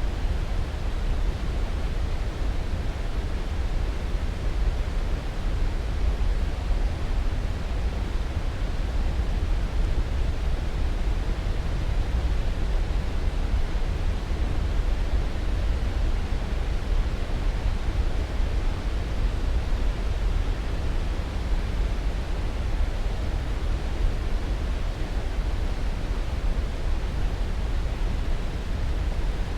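Steady sleep-aid noise, an even rushing hiss heaviest in the deep bass, unchanging throughout.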